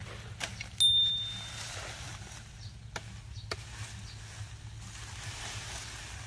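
A bright bell 'ding' notification sound effect rings out about a second in and fades within a second, matching the subscribe-button bell animation. Under it there are a few sharp clicks and soft rustling of brush and leaves.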